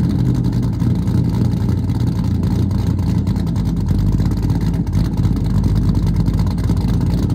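A 1985 Chevrolet C10's 350 small-block V8 running steadily while the truck drives along.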